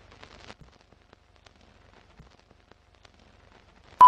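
Film-countdown leader sound effect: faint scratchy crackle and scattered clicks, then one short, loud, high single-pitch beep near the end, the sync tone that closes the countdown.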